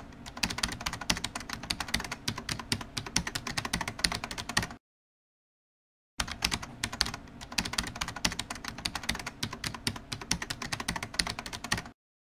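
Typing sound effect: rapid computer-keyboard key clicks. They cut off about five seconds in, start again about a second and a half later, and cut off again just before the end.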